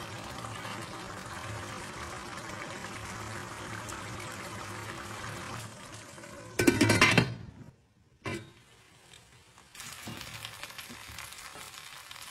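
A pot of rice and chicken in broth boiling and bubbling steadily, with music in the background. About six and a half seconds in there is a brief loud clatter, and after it the sound is quieter.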